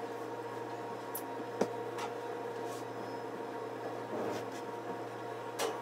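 A steady electrical hum, with a few light clicks and knocks as a metal baking pan of spaghetti squash halves is handled on its way into the oven. One knock near the end is a little fuller than the rest.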